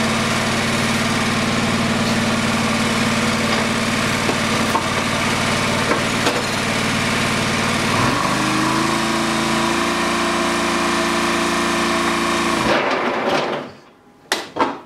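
John Deere 425 garden tractor's 20-horsepower Kawasaki engine running steadily; about eight seconds in its note changes as the 60-inch mower deck is engaged and spins up, and some four seconds later the engine dies, stalled by the load of the cold deck. A couple of sharp clicks follow near the end.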